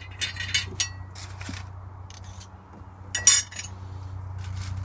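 Small metal and glass pieces clinking and rattling as they are picked up and handled, a few light clicks in the first second and a louder clatter about three seconds in, over a steady low hum.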